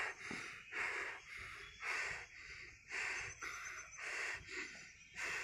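A person breathing heavily close to the microphone: about one loud, rough breath each second.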